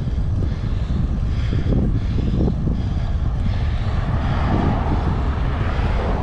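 Wind buffeting the microphone of a helmet-mounted camera while cycling: a steady low rumble, with a broader rushing sound swelling in the second half.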